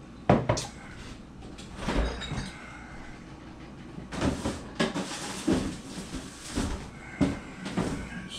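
A ceramic coffee mug is set down on a kitchen counter with a sharp clack. Then a refrigerator door is opened and things inside are shifted about, giving a run of knocks, clunks and rustles.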